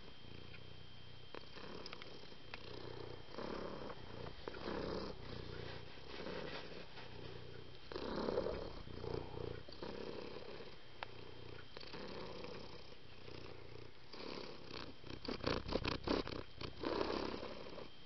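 Domestic cat purring, swelling and easing with each breath, with a quick run of clicks or rustles about fifteen seconds in.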